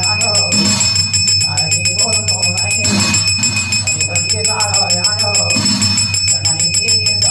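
Garhwali jagar ritual music: a man sings in phrases over a brass plate beaten in a fast, even rhythm, while a brass hand bell rings steadily.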